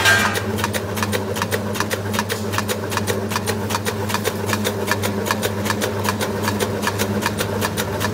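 Meatball-forming machine running: a steady electric motor hum with rapid, even ticking, several ticks a second.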